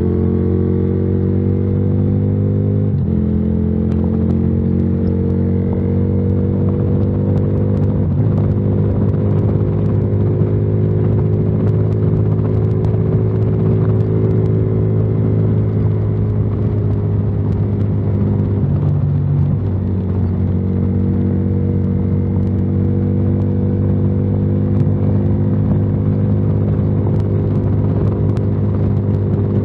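Yamaha Virago XV535's 535cc V-twin, with a debaffled exhaust, running under load as the bike accelerates. Its note climbs steadily, drops sharply at upshifts about three and eight seconds in, falters briefly near nineteen seconds, then holds steady at cruising speed.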